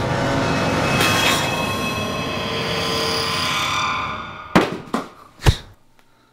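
Harsh, dense film sound design: a screeching wash with shrill tones over it, fading away about four seconds in. Three sharp hits follow over the next second, then it goes quiet.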